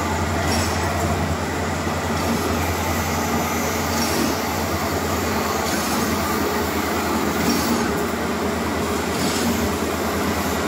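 Automatic wire straightening and cutting machines running: a loud, steady mechanical drone with a strong low hum, and a short hiss every few seconds.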